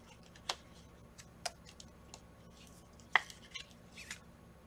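Panini Prizm trading cards being handled and flicked through by hand: a few sparse, light clicks and taps, the sharpest about three seconds in.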